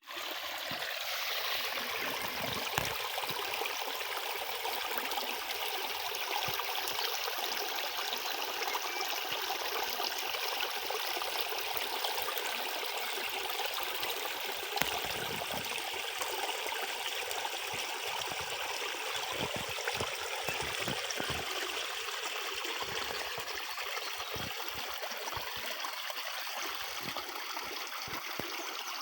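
A forest stream flowing, a steady rushing and trickling of water, with a few faint low bumps now and then.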